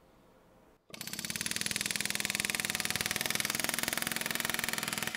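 Ingersoll Rand 119MAX .401-shank air hammer firing a rapid, even string of blows into a steel test fixture. It starts about a second in, builds over the first second as the trigger is feathered in, then runs steadily and stops near the end.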